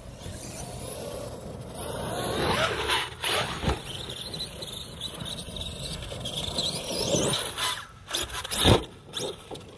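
Electric RC monster truck running over loose dirt: its motor whine rises and falls with the throttle over tyre and dirt noise, with a thump a few seconds in and a louder thud near the end as it lands from a jump.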